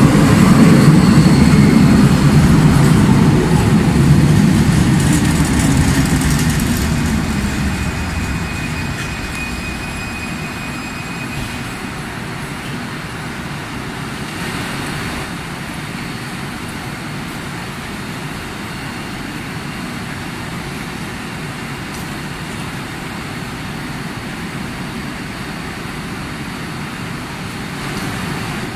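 Driverless Kelana Jaya Line LRT train passing close along the platform and pulling away, its loud low rumble fading over the first eight seconds or so. After that, a steady, quieter hum of the station.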